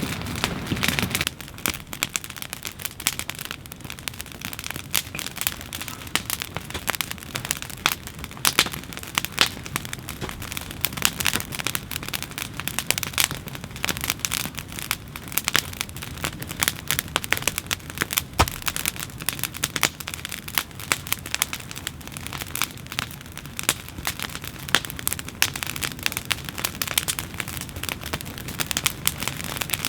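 Wood fire crackling and snapping, a dense, irregular run of sharp pops.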